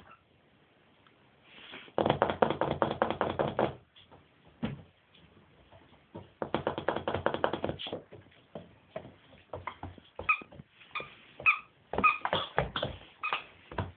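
Scottish Deerhound puppies at play: two loud bursts of rasping play-growling, each a second or two long, then short high yips and squeaks scattered through the second half.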